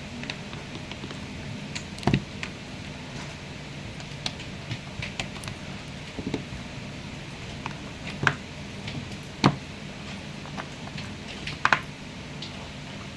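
Steady low machine hum with scattered sharp clicks and clacks, the loudest about two seconds in, near the middle and near the end.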